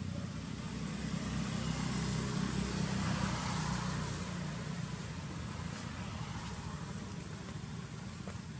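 Low engine rumble of a passing motor vehicle, swelling about two to three seconds in and then fading.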